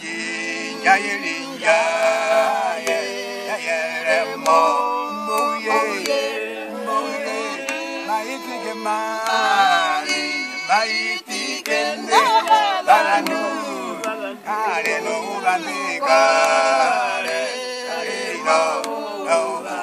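Several voices singing together, men's voices among them, in long gliding phrases.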